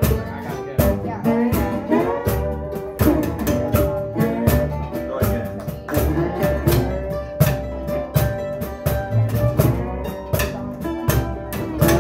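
Live acoustic band playing a song: a steady cajón beat under upright bass and guitar.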